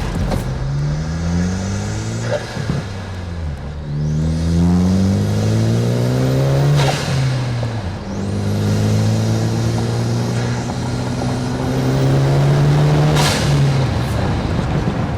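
Turbocharged Ford Focus ST engine accelerating hard through the gears: engine note rising in pitch over several pulls, each cut short by a gear change. A high turbo whistle climbs with each pull, and a sharp burst of turbo flutter comes off-throttle at the shifts near the middle and near the end.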